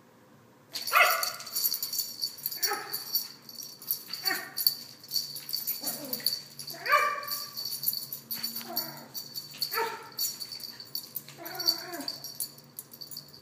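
A puppy yipping and whining while it spins chasing its tail, about eight short cries falling in pitch, roughly one every second and a half. Under them runs a rapid continuous jingling of its collar tags, starting about a second in and stopping near the end.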